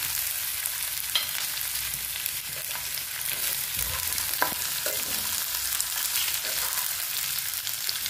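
Chopped onion and green bell pepper sizzling in hot oil in a wok as they are stir-fried. A flat spatula scrapes and knocks against the pan a few times, sharpest about a second in and again at about four and a half seconds.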